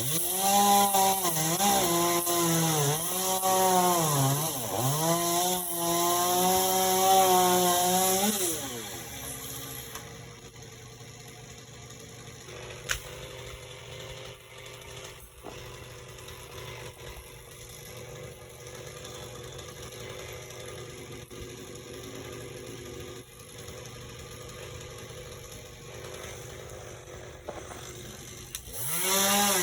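Chainsaw running at high revs, its pitch dipping and recovering several times, then dropping away after about eight seconds. A quieter stretch of about twenty seconds follows, with one sharp knock partway through. The saw revs up loudly again just before the end.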